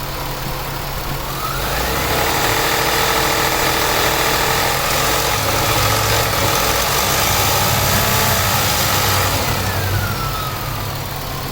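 2000 Nissan Maxima's warm V6 engine, with the AC compressor on, revved up from idle about a second in, held at higher revs for about eight seconds, then let back down to idle near the end. Under it runs a grinding knock that gets louder above 2000 RPM, which the owner thinks might be the timing chain but is not certain.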